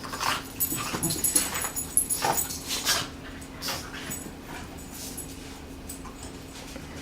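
Dogs playing, making short, sudden dog sounds in quick succession, busiest in the first three seconds and sparser and quieter after that.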